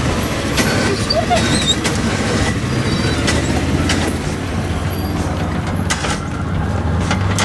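Polaris Ranger XP 1000 utility vehicle's engine running at low speed with a steady low drone as it creeps forward, with scattered light clicks and rattles.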